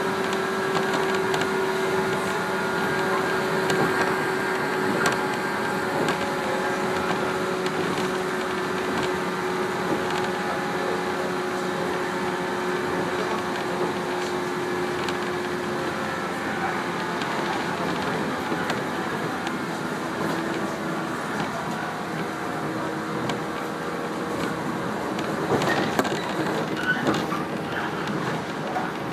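Inside a 115-series electric train running along the line: a steady rumble of wheels on rail with a few held motor and gear tones that fade away about halfway through. A short run of rail-joint clacks comes near the end.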